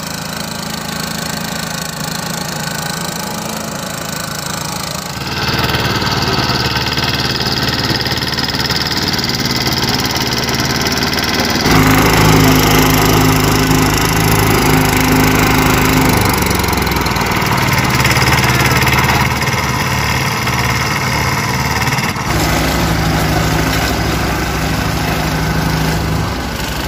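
The engine of a walk-behind double drum roller running steadily, with a low, even hum. The level and tone change abruptly three times, about 5, 12 and 22 seconds in.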